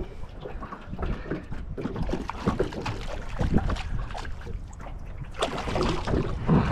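Hooked fish splashing at the water's surface beside the boat, louder near the end, with wind buffeting the microphone.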